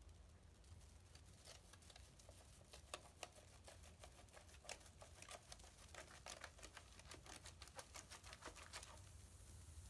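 Faint, irregular pattering and small splashing clicks of bathwater as a metal sieve holding a dissolving bath bomb is jiggled in the bath. The clicks stop near the end, leaving a soft hiss.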